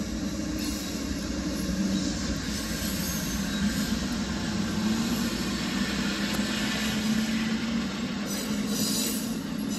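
Amtrak passenger train passing a level crossing, heard from inside a car. Its two diesel locomotives go by first, then the passenger cars roll past with a steady rumble of wheels on the rails.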